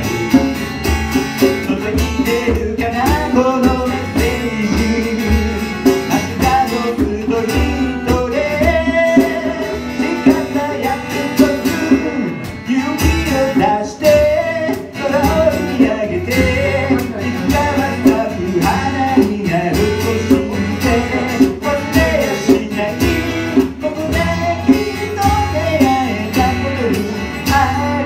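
A man singing a song while strumming a steel-string acoustic guitar, live and close to the microphone.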